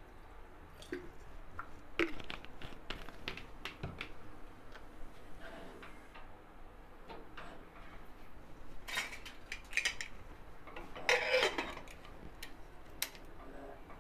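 A pressure cooker and its metal lid being handled: scattered light clinks and knocks, with a louder clatter about eleven seconds in as the lid is put on.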